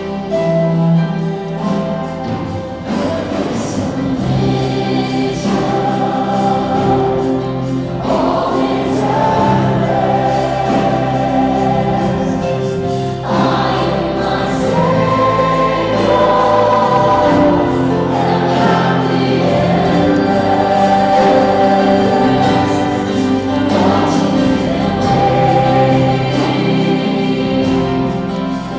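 Choir singing gospel-style church music, with held notes that change pitch throughout.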